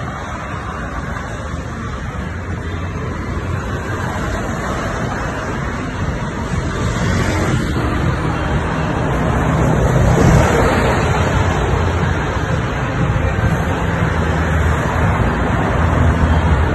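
Street traffic: cars driving past with a steady rush of tyre and engine noise, swelling as a car passes about ten seconds in and again near the end.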